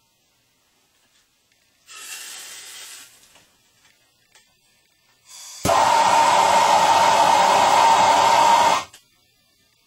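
Plumber's soldering torch flame hissing as it heats a copper pipe fitting for soldering: a softer hiss for about a second near the start, then a loud steady hiss that comes on suddenly about halfway through and cuts off three seconds later.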